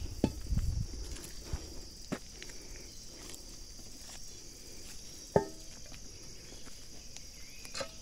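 Steady high chirring of insects, with footsteps on grass and a few short knocks, the sharpest about five seconds in.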